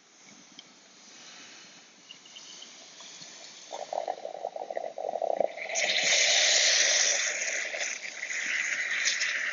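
Liquid nitrogen poured into a beaker of 99% isopropyl alcohol, boiling off as it hits the alcohol. A crackling spatter starts about four seconds in, and from about six seconds there is a loud, steady hiss.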